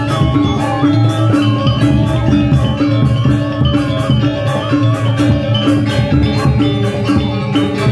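Balinese gamelan ensemble playing dance music: bronze metallophones ringing in a fast, even pulse over kendang drum strokes, with bamboo suling flutes.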